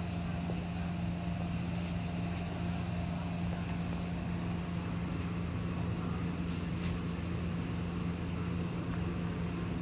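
Steady low machine hum with a constant drone, holding an even level throughout.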